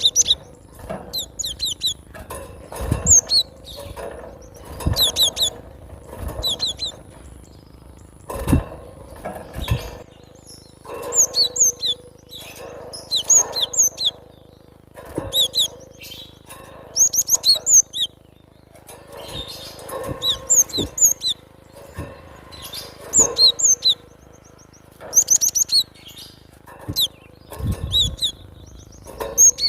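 Cinereous tit (glatik batu) singing: short phrases of quick, high, repeated chirping notes, coming again every couple of seconds. A few low thumps sound underneath.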